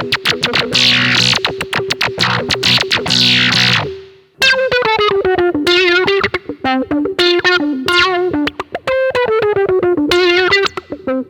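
Electric guitar played through a Behringer BM-11M low pass filter pedal. First come strummed chords, each with a filter sweep falling from bright to dull. After a brief gap about four seconds in, a single-note line follows, with bends and wah-like filter sweeps on the notes.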